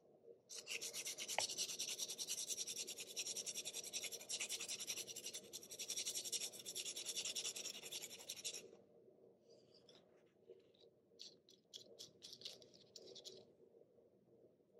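Graphite point of a Faber-Castell 9000 HB pencil rubbed rapidly back and forth on an abrasive sanding block to shape the lead: a continuous rasping scratch for about eight seconds, then a string of shorter, separate strokes.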